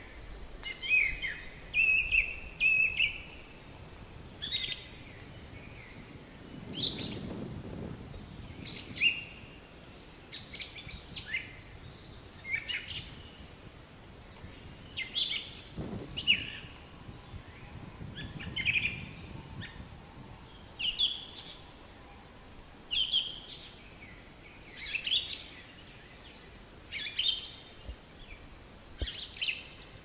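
Black-capped chickadee calling: a steady series of short, high notes, most sweeping steeply down in pitch, coming every second or two.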